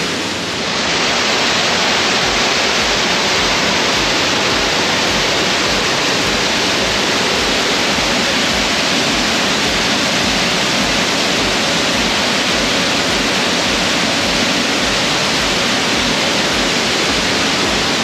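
Waterfall pouring, a loud, steady rush of water.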